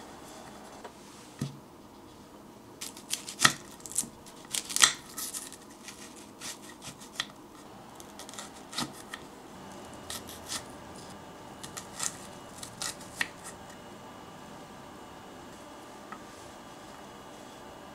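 Miniature kitchen knife cutting through an onion and tapping on a wooden cutting board: scattered sharp clicks, busiest a few seconds in and thinning out after that.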